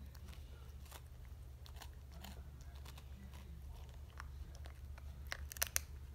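A cat biting and crunching a tortilla chip: scattered small crunches, then a quick run of louder crunches about five and a half seconds in. A steady low hum runs underneath.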